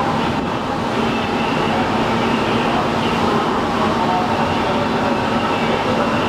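Steady rush of sea water along the hulls of ships underway side by side, over a constant low machinery hum.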